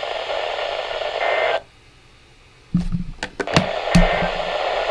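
NOAA weather radio static hiss that cuts out for about a second. After the gap come several sharp clicks and knocks, and then the hiss comes back.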